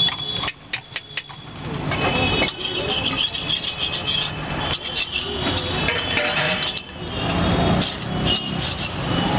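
Metal spatula tapping and scraping on an iron tawa, a quick run of sharp taps about a second in, over steady street noise and voices.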